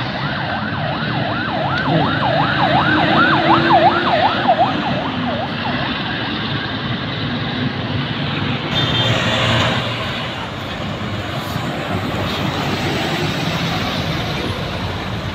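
A coach's siren-style horn warbling rapidly up and down, about three to four sweeps a second, for roughly the first five seconds over the bus's engine. After that, bus engine and road traffic noise.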